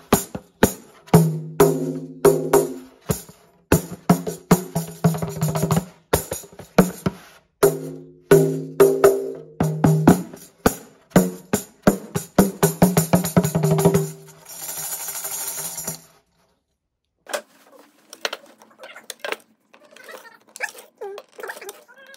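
Pandeiro with a natural skin head played by hand in a quick rhythm: each stroke gives a low drum tone with the brass jingles ringing. About fourteen seconds in, the jingles shake steadily for a couple of seconds and then stop, leaving only faint small clicks and scrapes near the end.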